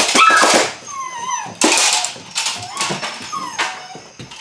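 Belgian Malinois puppy barking and yipping in several short, loud bursts, with a brief falling whine about a second in.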